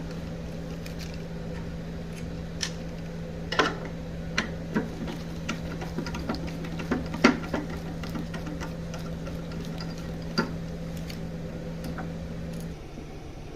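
Steady low hum with scattered, irregular clicks and taps of metal cabinet hinges and screws being handled and removed. The hum drops suddenly near the end.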